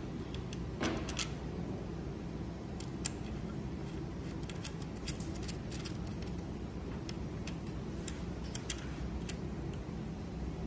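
Irregular small metallic clicks and taps of a No. 5 hex key fitting into and turning the screws that fasten a microscope head to its C-arm, over a steady low background hum.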